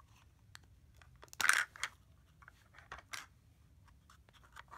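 Hands handling a Zuru 5 Surprise Mini Brands plastic capsule and its wrapper: scattered light plastic clicks and crinkling, with a short louder rustle about one and a half seconds in and another around three seconds in.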